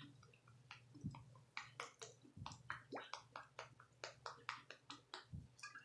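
Faint eating sounds from a snack in a plastic tub: soft, irregular clicks and taps, a few a second.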